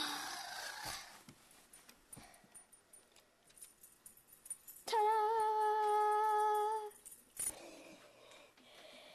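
A voice humming one steady, high note for about two seconds, about five seconds in, with a slight wobble as it begins. Near the start there is a short burst of noise lasting about a second.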